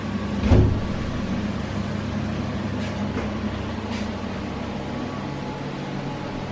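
A steady low mechanical hum, with a single thump about half a second in and a few faint clicks later on.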